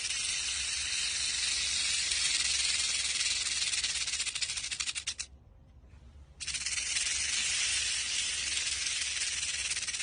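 A snake's steady, airy hiss. It breaks off about five seconds in and starts again a second later.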